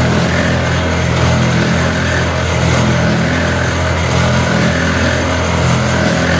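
Oil expeller machinery running: a loud, steady mechanical drone with a low hum that does not change.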